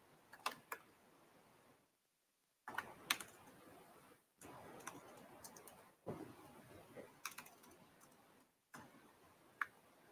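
Faint, irregular keystrokes on a laptop keyboard as a terminal command is typed, with the sound dropping out to silence a few times between them.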